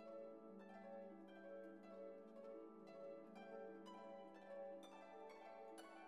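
Quiet background music: a run of plucked-string notes over a held low tone.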